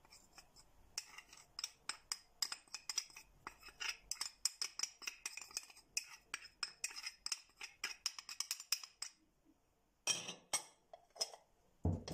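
Metal spoon clinking and scraping against a stainless steel mixing bowl and wire whisk while spooning cornstarch into sugar. It makes a quick run of light clinks for most of the time, pauses, then gives a few more clinks near the end.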